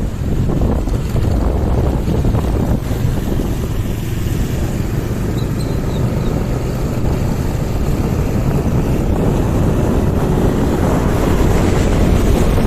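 Wind buffeting the microphone of a moving motorcycle, a loud steady low rumble with road and engine noise underneath.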